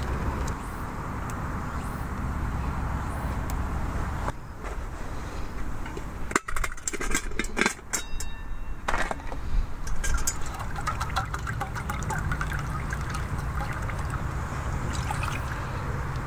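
Stainless steel pot and lid clinking and clanking as they are handled, about six to nine seconds in. From about ten seconds, water is poured from a stainless sierra cup into the pot, splashing and trickling.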